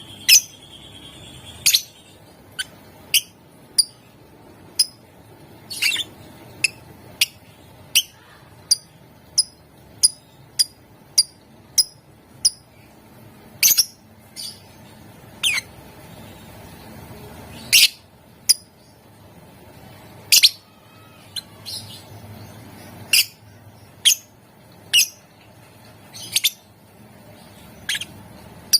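Lovebird giving a string of short, sharp, high-pitched chirps, one after another at uneven gaps of about half a second to two seconds, some louder than others.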